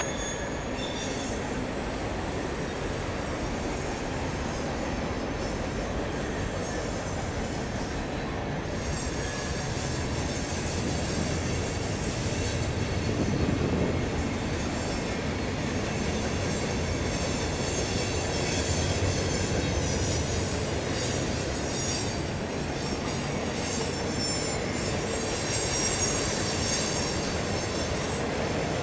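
Freight train cars (waste containers on flatcars, covered hoppers, boxcars and centerbeam flats) rolling past. The wheels rumble steadily on the rails, and high-pitched wheel squeal rises and fades over it.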